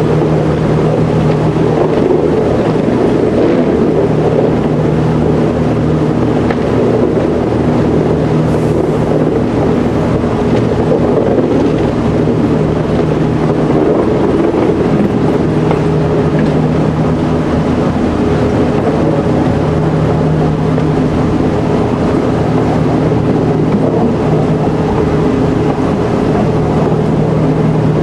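Vintage railcar's engine running steadily under way, with the rumble of its wheels on the track; a steady drone with no change in speed or pitch.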